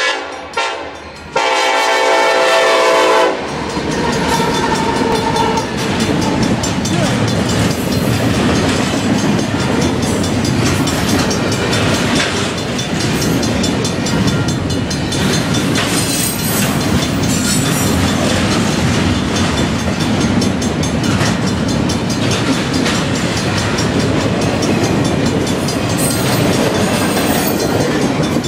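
Union Pacific SD70ACe locomotive sounding its horn, a held multi-tone blast ending about three seconds in. Then its double-stack intermodal container train rolls steadily past with wheels clattering over the rail joints.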